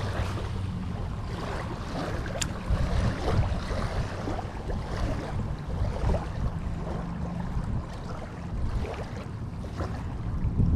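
Wind rumbling on the microphone, unsteady in level, with a faint steady low hum under it.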